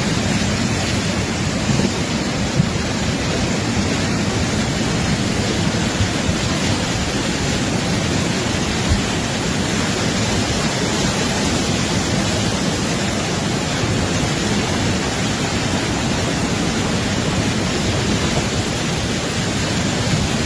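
Fast-flowing floodwater rushing steadily, a loud, even wash of water noise.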